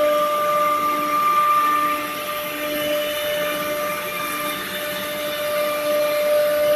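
ATC CNC wood router running, its spindle giving a steady whine with a lower tone that comes and goes as the gantry moves the head over the panel.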